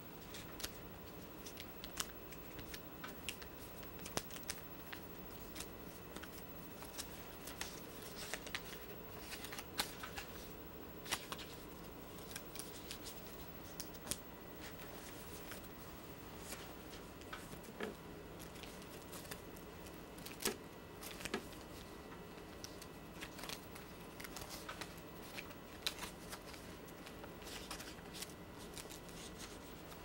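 Origami paper being folded and creased by hand: soft, irregular crinkles, taps and rubbing of the paper, over a faint steady hum.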